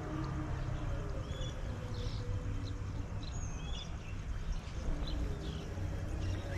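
Birds chirping: short, scattered high calls over a steady low rumble.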